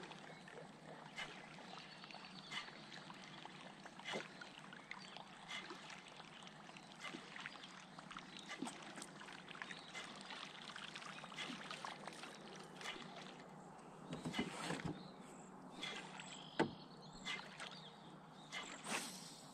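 Water lapping and trickling quietly against the hull of a small boat, with scattered light clicks and a few knocks, the sharpest one late on.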